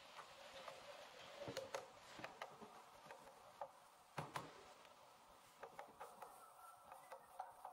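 Faint, irregular knocks and taps of a hammer on the wooden rails and panels of an old panelled door as it is knocked apart, with the loudest pair of blows about four seconds in.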